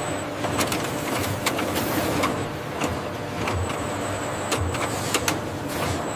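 Factory machinery running: a steady mechanical noise with irregular sharp clicks and clanks, low thuds about once a second, and a thin high whine.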